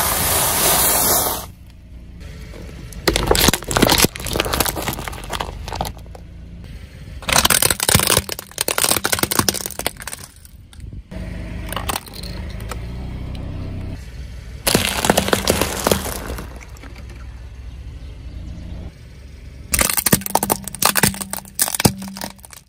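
Car tyre rolling slowly over brittle objects and crushing them, heard as several separate bursts of crackling and crunching a few seconds apart, with a low steady rumble from the car in between.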